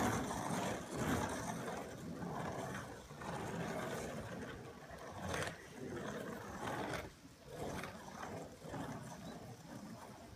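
Woodypress surfskate's wheels rolling on rough asphalt: a rumbling noise that swells and dips with each pump and carving turn, with a few sharper scrapes, growing fainter as the board moves away.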